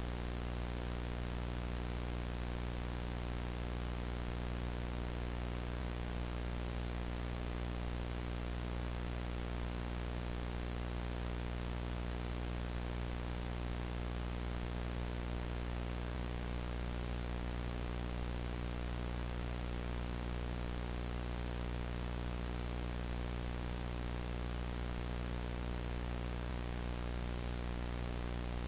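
Analog VHS tape static: a steady, unchanging hiss with a low hum and its evenly spaced overtones underneath.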